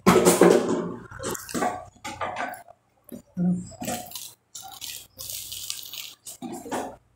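Close-mic eating sounds: a wet sip of coffee in the first second, then a series of short chewing and biting sounds on crusty griddle-toasted bread (pão na chapa).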